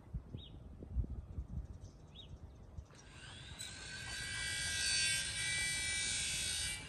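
Dogs tussling, with light thumps and a couple of short high squeaks. About three seconds in, a high-pitched motor starts up, grows louder and holds steady, then cuts off suddenly near the end; it is the loudest sound.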